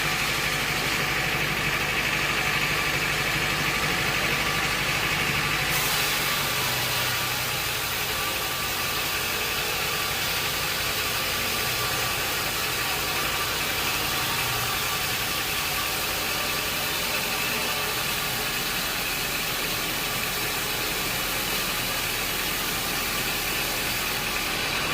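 Sawmill machinery running steadily, a constant mechanical drone with a faint high whine; its tone shifts slightly about six seconds in.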